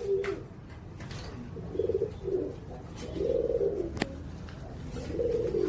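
Pigeons cooing: a series of low, throaty coos, with a single sharp click about four seconds in.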